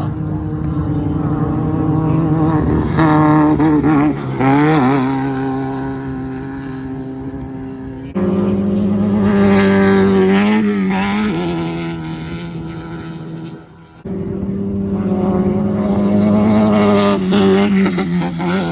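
Engines of Class 1600 off-road race buggies, air-cooled VW 1600 cc, running hard and passing by, their pitch wavering up and down with throttle and gear changes. It comes as three passes with abrupt cuts between them, about 8 seconds in and near 14 seconds, each growing loud as a car nears.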